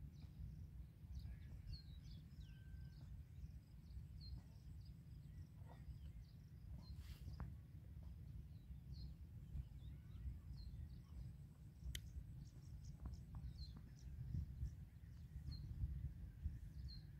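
Faint open-field ambience: a steady low rumble with short high chirps from a small bird repeating about once a second, and a single sharp click about two-thirds of the way through.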